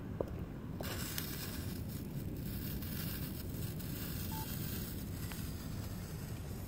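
The fuse of a homemade smoke grenade catching and hissing with small crackles, starting about a second in and fading after about five seconds. A sharp click comes just at the start.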